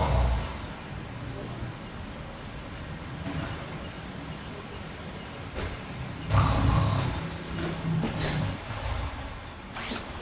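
Cricket chirping steadily, about five chirps a second, with a faint steady high whine beneath it. About six seconds in, a low rumble swells up for about two seconds and then fades.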